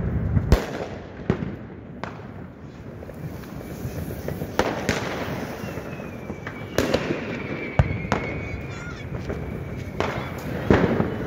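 New Year's Eve fireworks and firecrackers going off, sharp bangs at irregular intervals with the loudest a little under five and seven seconds in and near the end. A faint long whistle, falling slightly in pitch, runs through the middle.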